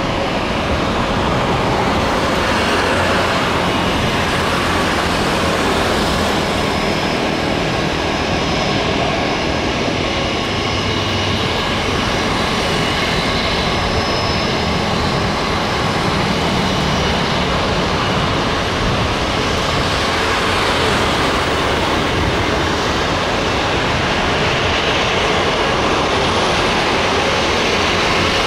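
Jet airliner engines running at idle power during taxi: a steady rumble and hiss with a faint high whine over it.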